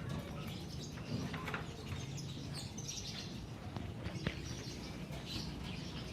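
Birds chirping in scattered short calls over a steady low hum, with a few sharp clicks.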